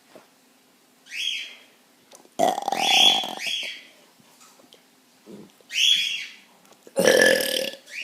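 A boy burping loudly twice: a long burp of over a second starting about two and a half seconds in, and a shorter one about seven seconds in. Short high chirps come about a second in and just before six seconds.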